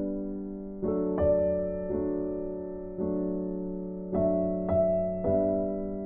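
Background music: slow piano chords, a new chord struck about once a second and left to ring and fade.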